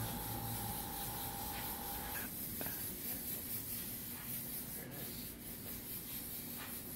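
Airbrush hissing as it sprays paint onto a canvas, with a thin steady tone in the background that stops about two seconds in.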